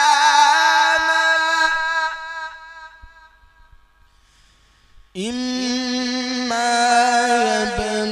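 A man's voice in Qur'an recitation (tilawah), held on long ornamented notes. The first note wavers in pitch and fades out within about three seconds. After a pause of about two seconds, a new sustained note comes in sharply and steps up in pitch partway through.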